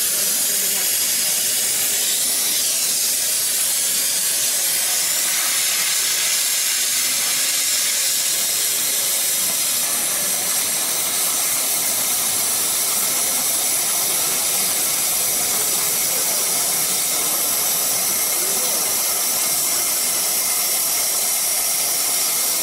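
Multiplaz 3500 steam-plasma torch running with a steady, even high hiss while its arc welds metal.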